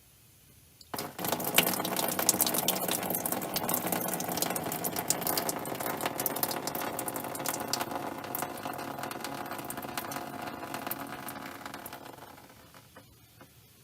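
Old, varnishy fuel hissing and spattering out of the Schrader valve on the fuel rail of a 1994 Jeep Grand Cherokee 5.2L V8 as the valve is held open: the fuel line backfeeding. It starts suddenly about a second in and tapers off near the end.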